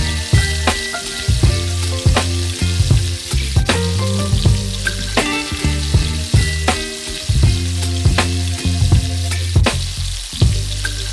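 Food frying in hot oil, a steady sizzle, under background music with a bass line and a regular beat.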